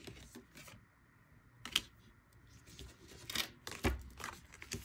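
Tarot cards being drawn and laid down on a table: a few short swishes of card stock sliding over other cards, with a light tap of a card landing a little before the end.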